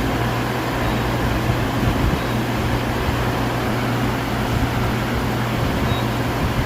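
CNC milling machine running with a steady low hum and an even whirring noise.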